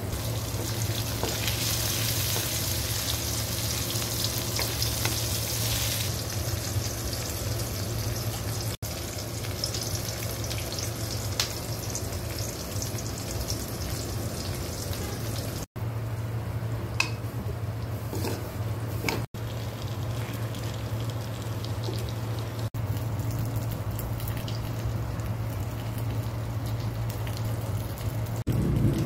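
Food frying in hot oil in a metal wok and being stirred, with a sizzling hiss that is strongest in the first few seconds. A steady low hum runs underneath, and the sound breaks off for an instant at several points.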